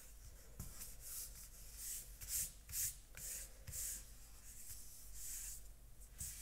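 Hands rubbing and smoothing over a folded cardstock card to press a freshly glued flap down: a faint, irregular series of soft papery swishes.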